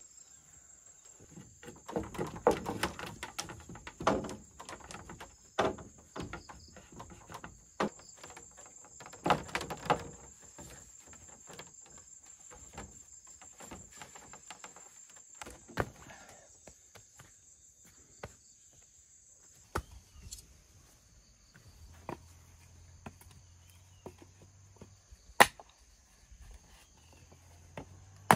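A steady, high-pitched chirr of insects runs throughout. Scattered knocks and rustles come in clusters through the first half, and a single sharp click sounds near the end.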